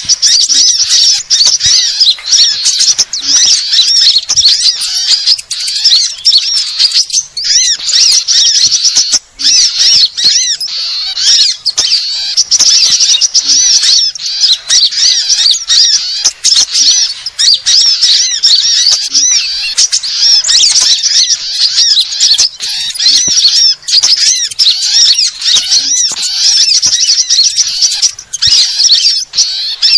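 Bird-lure recording of many small songbirds chirping and calling at once, a loud, dense, unbroken chatter of quick high-pitched notes, meant to draw small birds in.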